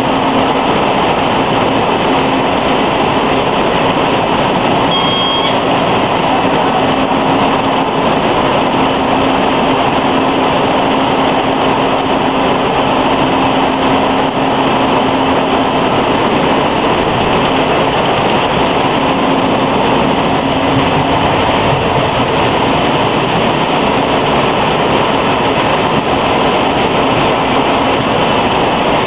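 Mineral water bottling line running: plastic bottles jostling and clattering along conveyors amid steady machine noise, with a faint steady hum underneath.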